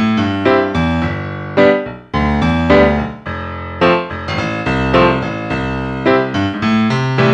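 Background piano music, notes and chords struck about twice a second.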